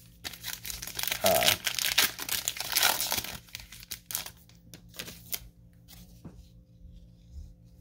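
Trading card pack wrapper being torn open and crinkled by hand, a dense crackle for about three and a half seconds. A few lighter clicks and rustles of the cards being handled follow.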